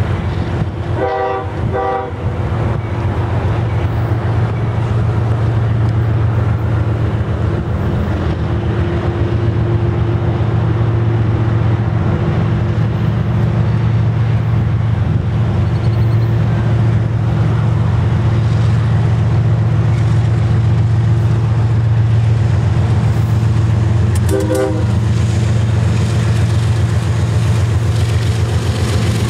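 Diesel freight locomotive horn giving two short toots just after the start and one more short toot about 24 seconds in, over a steady low rumble from the approaching GE locomotives. The pair of short toots is a two-tap horn salute.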